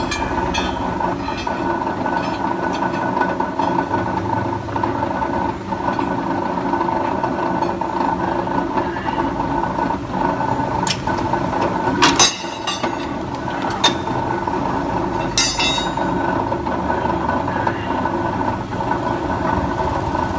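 Three-phase electric rebar cutting machine running with a steady mechanical hum, with a few sharp metallic clanks near the middle.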